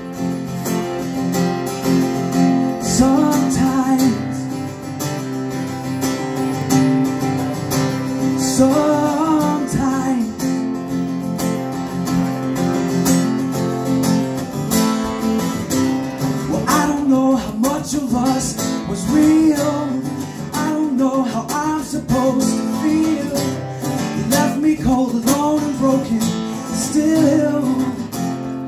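Two acoustic guitars strumming chords together, played live without lyrics between sung choruses.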